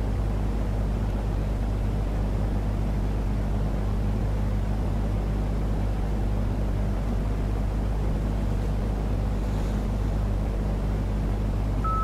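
Steady low electrical hum under an even hiss of static, unchanging throughout.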